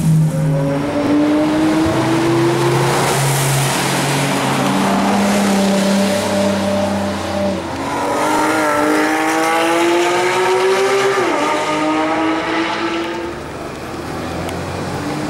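Porsche 991 GT3 RS flat-six accelerating hard, its engine note climbing in pitch gear after gear, with a sharp drop at an upshift about eleven seconds in. The sound eases near the end.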